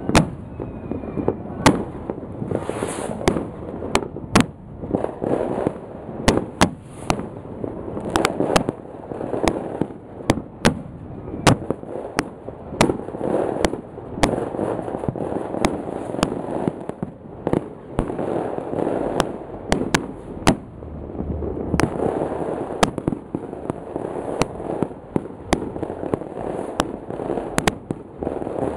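New Year fireworks going off all around: sharp bangs about every second, some louder than others, over a continuous din of more distant fireworks and crackle.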